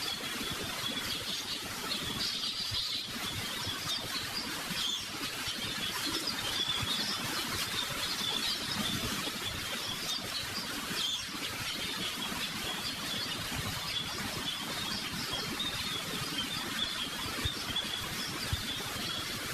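Birds chirping continuously in the background, many small high calls overlapping over a steady outdoor hush.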